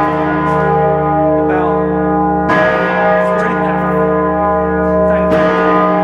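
York Minster's Great Peter, a large cast-bronze bell, being swing-chimed by rope: it strikes twice, about two and a half seconds in and again near the end, roughly every three seconds, each stroke over the long ringing hum of the strokes before.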